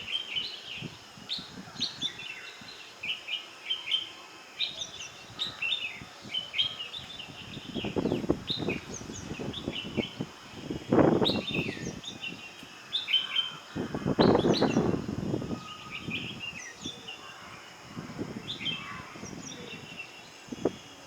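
Bulbuls calling back and forth in a run of short, quick chirps and twitters. A few loud bursts of low noise break in, the strongest about halfway through and again two-thirds of the way in.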